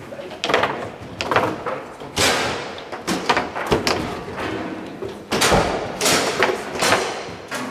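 Foosball play on a Garlando table: irregular sharp clacks and knocks, several a second, as the plastic men strike the ball and the rods knock against the table.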